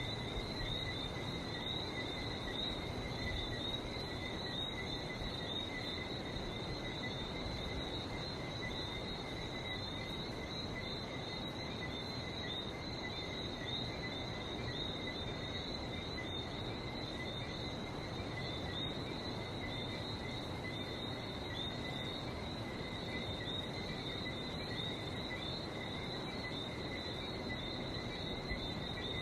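Night chorus of whistling frogs, many short high chirps overlapping without pause, over a steady low hiss of sea surf.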